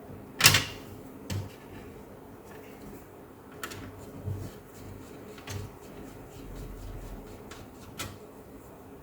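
Sharp knocks and clicks of a laptop's plastic case and parts being handled during disassembly: one loud knock about half a second in, then half a dozen lighter clicks spread out.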